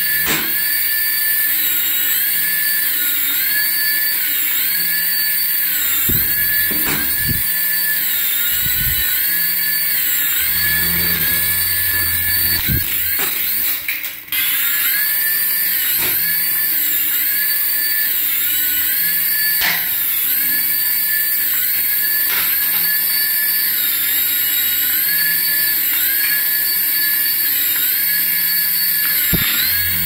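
Toy RC helicopter's small electric motors and twin stacked rotors whining at a high pitch, the pitch dipping and recovering about every second or so as the throttle varies. The sound cuts out briefly about halfway through.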